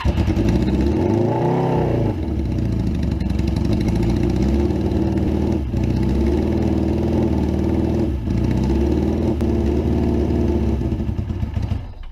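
Suzuki GS550 air-cooled inline four-cylinder motorcycle engine running, revved once briefly about a second in, then held at a steady speed with two short dips before it cuts off near the end. It still runs badly with the fuel tap on prime, which the owner takes to mean that fuel starvation is not the cause and the fault could be electrical.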